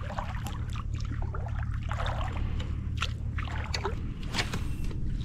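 Shallow seawater sloshing and splashing in irregular spurts, with a few sharp splashes, as a person wades. A steady low rumble runs underneath.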